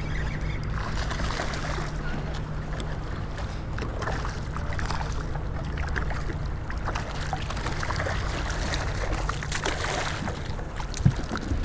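Water sloshing and splashing against a plastic kayak hull over a steady low rumble. Near the end a hooked bluefish thrashes at the surface beside the kayak, and there is one sharp knock just before the end.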